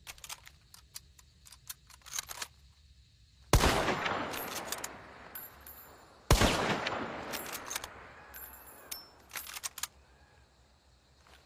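Mosin-Nagant bolt-action rifle in 7.62×54mmR: metallic clicks of the bolt being worked, then two shots about three seconds apart, each with a long echoing tail, followed by more bolt clicks as the action is cycled again.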